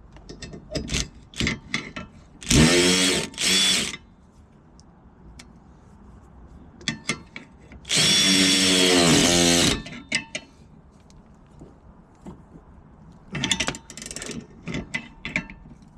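A cordless power tool runs in three bursts, driving a spare bolt into a stuck brake rotor to press it off the hub: two short bursts a few seconds in, then a longer one of nearly two seconds about halfway, spinning up in pitch at its start. Light clicks and metal knocks of tools come between the bursts.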